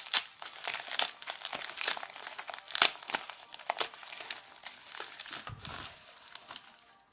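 Packaging crinkling and rustling as a package is unwrapped by hand, with a sharp snap a little under three seconds in; the crinkling thins out near the end.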